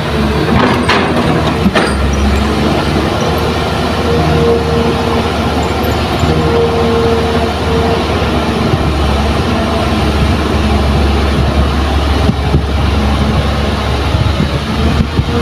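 Kobelco hydraulic excavator's diesel engine running steadily under load as it swings and digs, with a whine that swells and fades twice. A couple of sharp knocks come in the first two seconds.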